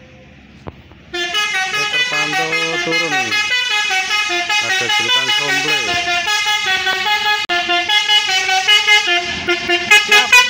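A tour bus's multi-tone musical "telolet" horn plays a stepping tune of many notes, starting about a second in. Some notes slide down in pitch, and it turns louder and choppier near the end as the bus draws level.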